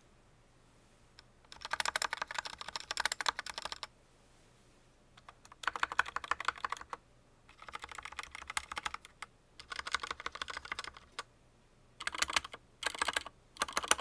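Typing on an Akko 3061 Neon 60% mechanical keyboard with Akko pink linear switches: about six bursts of fast keystrokes, each one to two seconds long, with short pauses between. The presses near the Enter key and the spacebar are on stabilized keys, whose stabilizers make an unpleasant noise although the switches themselves are smooth.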